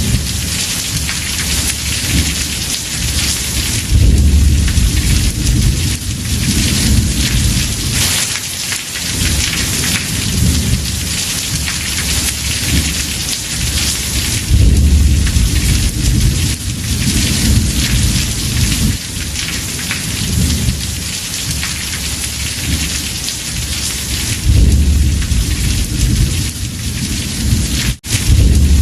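Heavy rain drumming on a house roof in a steady hiss, with low thunder rumbling up several times. Near the end the sound cuts out for an instant.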